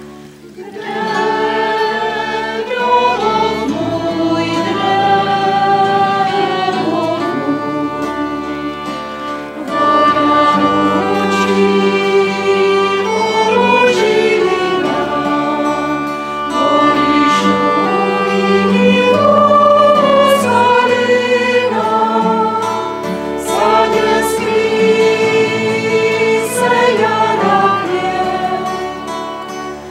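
A small choir singing a slow song, accompanied by violin, acoustic guitar and double bass. The voices come in about a second in and sing on in long phrases.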